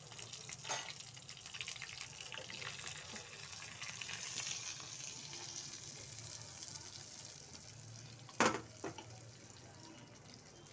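Garlic and asafoetida sizzling in hot oil in a small tadka ladle, a steady hiss that swells around the middle. About eight seconds in comes a sharp metallic clank with a smaller one just after, as the aluminium pressure cooker's lid is taken off.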